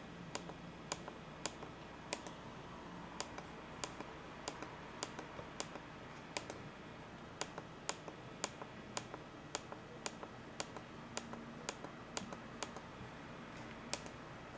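Short sharp clicks, irregular and roughly two a second, of a finger tapping and pressing the controls of a Canon EOS Kiss X6i (Rebel T4i) camera while changing its settings, over a faint steady hiss.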